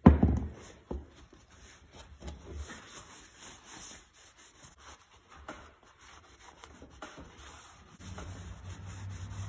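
Blue shop towel wet with brake cleaner wiping down a cast-iron vise base on a wooden bench: a loud knock at the start, then faint, irregular rubbing and scuffing with small knocks of the metal on the wood. A steady low hum comes in near the end.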